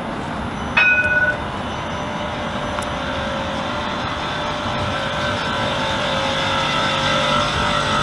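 CAF Urbos 3 electric trams running through a tram stop, with a steady rumble of wheels on rail that slowly grows louder as a tram draws alongside. About a second in, a short, loud two-note chime rings out and dies away within half a second.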